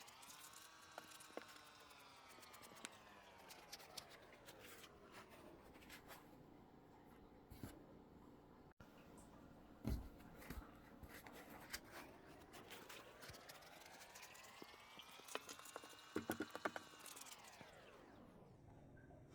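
Faint clicks and crackles of a foam banana squishy toy being handled and squeezed, with louder clusters about halfway through and near the end. Under them a faint pitched tone slowly rises and falls, twice.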